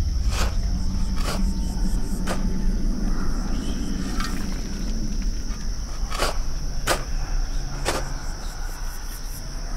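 Steady high cricket chirring over a low rumble, broken by about seven sharp blows at uneven intervals from a shovel being struck down again and again.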